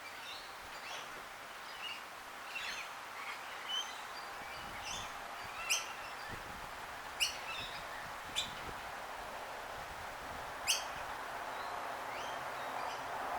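Wild birds chirping, short high calls scattered every second or so, a few sharper ones standing out, over a steady outdoor background hiss.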